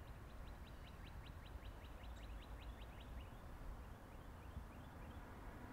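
Faint bird trill: a fast series of short high chirps, about seven a second, that fades out about three seconds in, over a low steady outdoor rumble.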